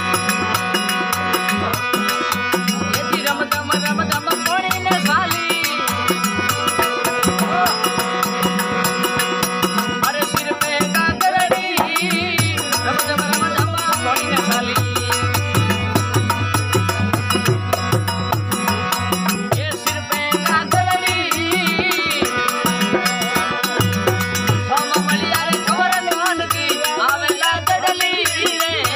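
Indian folk devotional bhajan music: a passage without sung words, carried by a steady drum beat, rattling percussion and a sustained melodic instrument.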